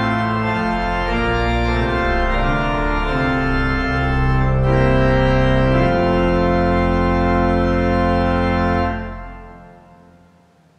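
Organ playing sustained chords that change every second or two, ending on a held chord that is released about nine seconds in and fades away.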